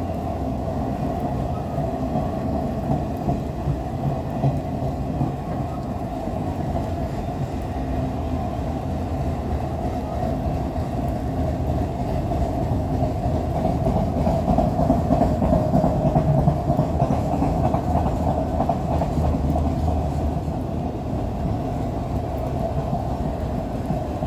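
Empty autorack freight cars of a long train rolling past at slow speed, about 15 mph: a steady rumble of wheels on rail with fine clicking. It grows louder for a few seconds a little past the middle.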